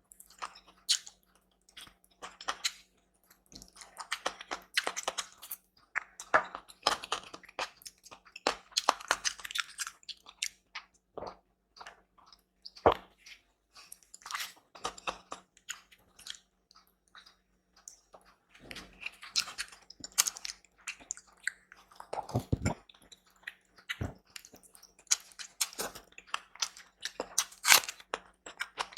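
Close-miked chewing and crunching of food, in irregular clusters of wet clicks and crackly bites with short pauses between mouthfuls.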